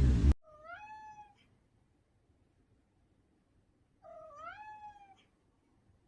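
A loud rough noise cuts off abruptly just after the start. Then a domestic cat meows twice, each meow about a second long, rising and then falling in pitch, about three and a half seconds apart.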